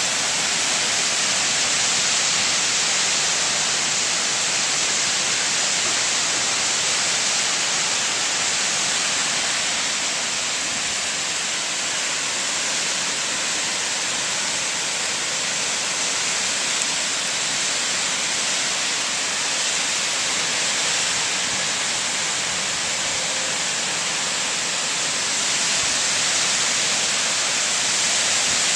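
Torrential storm rain driven by strong wind, a steady unbroken hiss.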